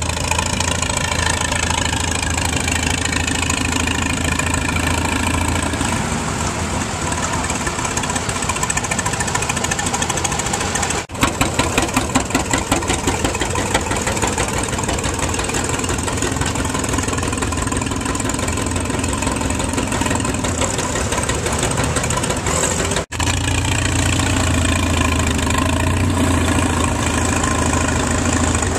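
Antique tractor engines running, in three abrupt cuts. First a Farmall engine whose pitch glides up and down. Then, about eleven seconds in, a John Deere two-cylinder with an uneven popping exhaust beat, about four or five pops a second at first. Then, about twenty-three seconds in, another Farmall engine running steadily.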